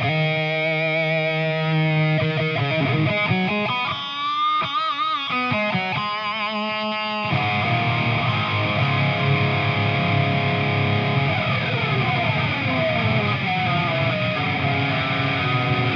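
Electric guitar, a Chapman ML3 with a Seymour Duncan Quarter Pound bridge pickup, played through a crunchy overdriven tone. Single notes are held with vibrato and bends, then about seven seconds in a full chord is struck and left ringing.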